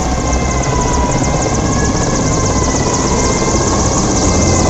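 Mi-17 military transport helicopter flying low overhead: the rapid, even beat of its five-blade main rotor over a steady whine from its twin turboshaft engines, growing slightly louder.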